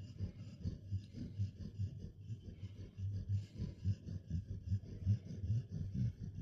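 A Goldador dog snoring: a low, pulsing snore with several throbs a second.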